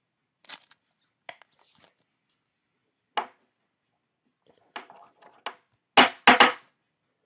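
Trading-card pack wrapper crinkling and tearing as cards are handled: a string of short, crisp rustles, with the loudest few close together near the end.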